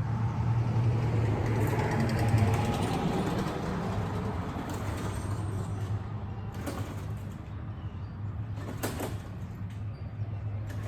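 Gas push lawn mower engine running steadily, with a few brief sharp knocks or clicks over it.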